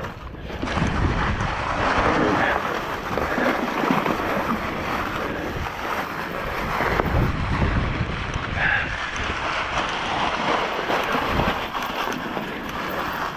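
Wind rushing over the microphone of a bike riding a leaf-covered forest trail, with the tyres rustling over dry leaves and frequent low knocks from the bumpy ground.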